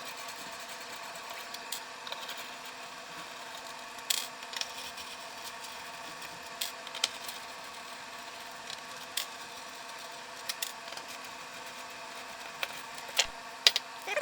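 Scattered small clicks and taps of a screwdriver and screws on the plastic casing of an Xbox One S as the top-cover screws come out, with a few sharper clicks near the end. A steady hum runs underneath.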